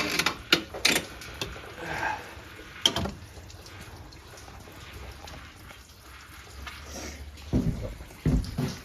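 Sharp metallic clicks and knocks from hand tools and bolts being handled during a water pump removal, then a few heavier thumps near the end.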